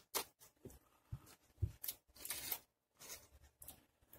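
Faint handling noises as a small drone battery pack and its leads are picked up and turned over in the hands: a scatter of brief clicks and rustles, with a longer rustle about two seconds in.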